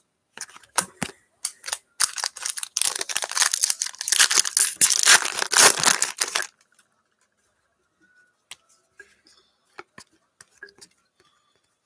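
A foil-wrapped football trading card pack being torn open and its wrapper crinkled: a few sharp clicks, then about four seconds of dense rustling starting about two seconds in, followed by a few faint ticks as the cards are handled.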